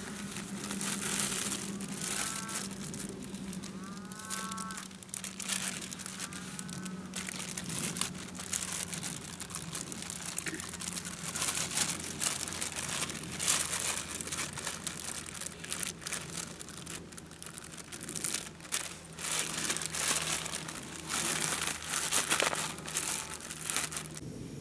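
Plastic bag and nylon stuff sacks crinkling and rustling as gear is handled and rummaged through, in irregular spells with short pauses.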